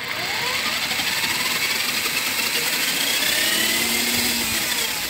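Electric chainsaw's universal motor, fitted as an ebike drive, running and turning the rear wheel through the chain: a steady mechanical whine that rises in pitch as it spins up.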